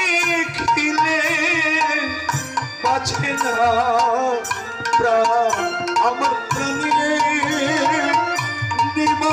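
Live devotional kirtan music: a voice sings a wavering, ornamented melody over a hand-drum rhythm.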